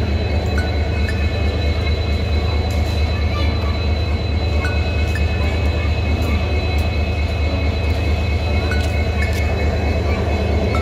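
Diesel locomotive engine running steadily close by: a deep, even drone with a thin high whine over it.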